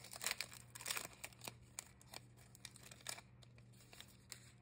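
A trading-card pack wrapper being torn open by hand, crinkling and tearing in a run of quick crackles that thins out after about three seconds.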